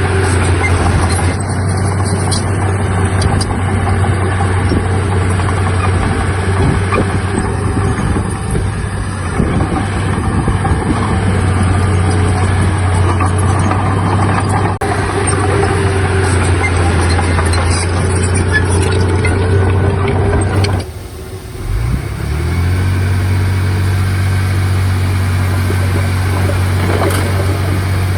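Heavy diesel earthmoving machinery running steadily under load with a deep, constant engine note. About 21 seconds in the sound drops out briefly, then an engine comes back with a rising pitch and settles to a steady run.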